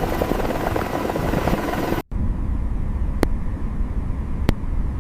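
Steady aircraft engine drone for about two seconds. It cuts off abruptly and is replaced by a lower, duller engine rumble with a few faint ticks.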